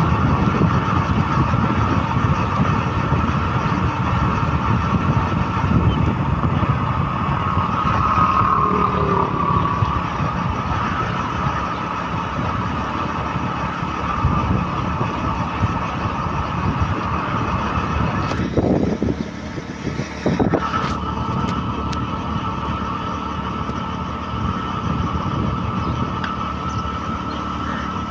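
A vehicle's engine running with road and wind noise, heard from on board as it travels along a dirt road, with a steady whine over a rumbling drone. The sound drops briefly about two-thirds of the way through, then carries on as before.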